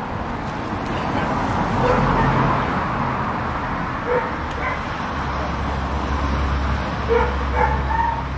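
Seafront street ambience: traffic on the road and people about, with a low vehicle engine rumble from about halfway through. A few short, sharp calls come about two and four seconds in, and a quick run of them near the end.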